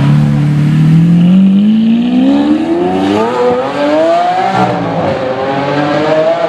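Lamborghini Aventador's V12 accelerating hard away from the camera, its pitch climbing steadily. It shifts up once, about four and a half seconds in, with a brief drop in pitch, then climbs again.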